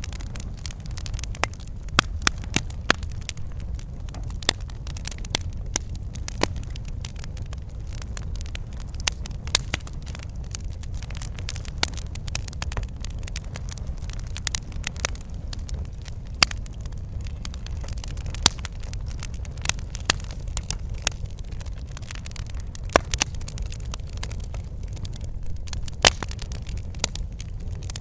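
Wood fire crackling in a fireplace, with irregular sharp pops and snaps over a steady low rumble of burning.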